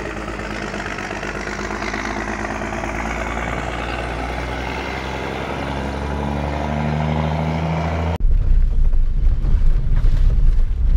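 A motor vehicle engine running, its pitch slowly rising as it grows louder. About eight seconds in, it cuts abruptly to the low, uneven rumble of a car driving on a dirt road, heard from inside the cabin.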